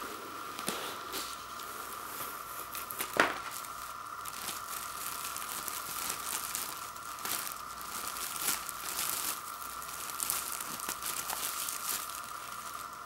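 Clear plastic shrink wrap being torn open and peeled off a vinyl LP sleeve, crinkling in a dense run of crackles, with one louder sharp crack about three seconds in.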